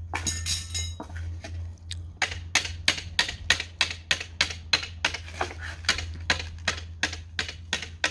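Hand hammer striking a heated iron wheel tyre in quick, even blows, about four a second, driving it down over the rim of a wooden wheel while it is still hot and expanded, before it is quenched to shrink tight.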